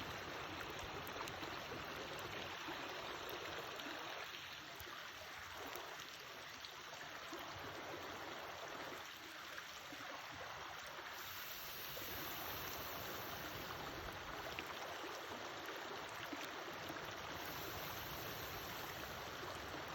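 Wood campfire burning: a steady rushing hiss with scattered sharp crackles and pops.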